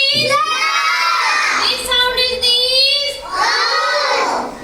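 Children's voices chanting in unison in a drawn-out sing-song, holding long notes that glide up and down, as in a phonics drill that sounds out and blends letter sounds.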